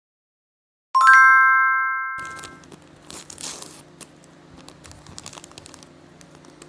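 A bright chime sound effect rings out about a second in, several tones together fading over a second and a half. It is followed by crinkling and tearing of packaging, with a louder rustle about three and a half seconds in.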